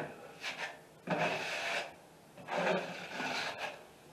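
Wide drywall knife dragged across the ceiling, spreading a thin coat of joint compound: a short faint scrape, then two longer, louder scraping strokes.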